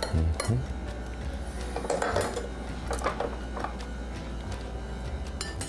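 A serving utensil clinking and scraping against a crockpot and a plate as food is dished out, a handful of separate clinks over a steady low hum.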